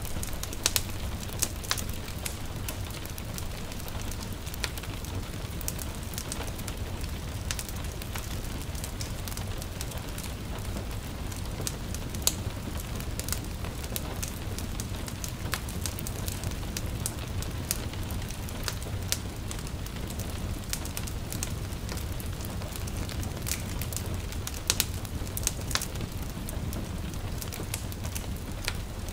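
Crackling wood fire with irregular sharp pops over the steady hiss of light rain.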